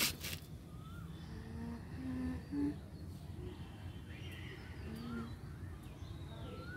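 Open-air ambience with faint birds chirping in short rising and falling calls, and a few brief low hum-like notes about two seconds in and again near five seconds.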